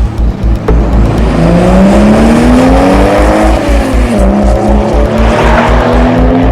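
Cartoon car engine sound effect revving, its pitch climbing, dipping once about four seconds in, then climbing again, over electronic background music with a steady beat.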